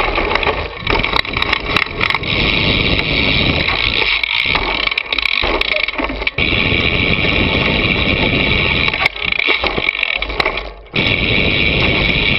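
Wind rushing over the microphone of a camera mounted on the front of a mountain bike riding a dirt trail, with rattles and knocks from the bike and front tyre over rough ground. The noise dips briefly near the end.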